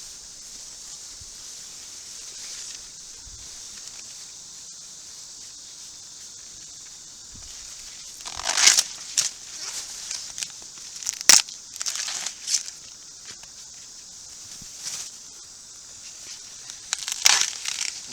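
Corn leaves and husks rustling and crackling in bursts as ears of sweet corn are handled and picked, with one sharp snap a little past the middle. A steady high hiss runs underneath.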